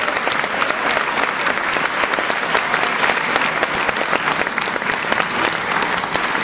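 Concert audience applauding steadily, a dense patter of many hands clapping.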